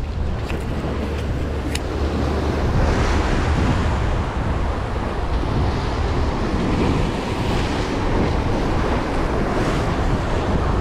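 Ocean surf breaking and washing against the boulders of a rock jetty, with wind buffeting the microphone in a steady low rumble. A few sharp clicks sound in the first two seconds.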